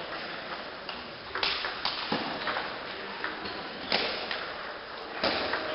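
Table tennis rally: the ball clicking sharply off the bats and the table in an irregular rhythm of hits, over the background noise of a sports hall.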